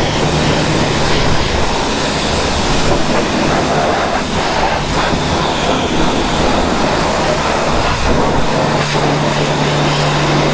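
Self-service car-wash pressure washer spraying water onto a muddy motorcycle: a continuous hiss of spray over a steady low pump hum that grows stronger near the end.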